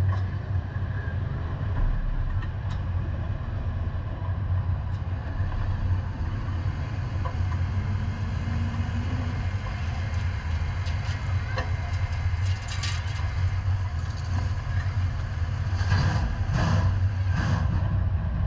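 Super saloon race car's engine idling with a steady low rumble. Near the end come three short knocks about two-thirds of a second apart.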